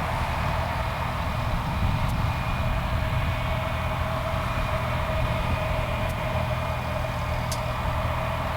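Jet engines of a Douglas DC-8-55F freighter, four Pratt & Whitney JT3D turbofans, running steadily at low power with a constant whine over a low rumble.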